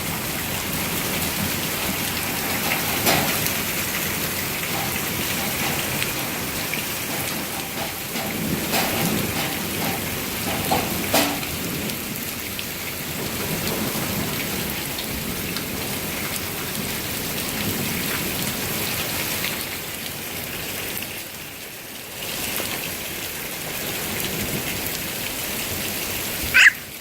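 Rain falling steadily, with a few short sharp taps in among it.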